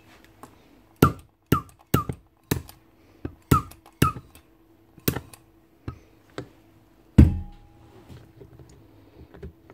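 A string of about ten sharp plastic clicks and taps as the battery terminal block of a Milwaukee impact driver is handled and set into the driver's plastic housing, the loudest a knock with a low thump about seven seconds in. A faint steady hum runs underneath.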